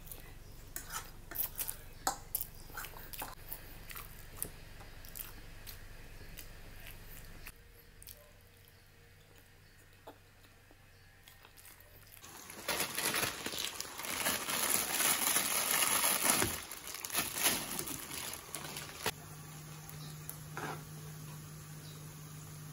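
Close-up eating sounds of instant noodles: short wet clicks and slurps, with the fork tapping the plate. About twelve seconds in, a louder rushing, crackling noise begins, and a low steady hum follows it.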